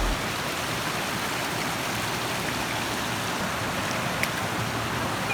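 Shallow stream flowing steadily, an even rushing of water.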